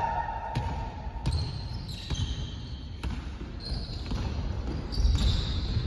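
Basketball bouncing on a hardwood gym floor during play, with players' running footsteps and short high sneaker squeaks.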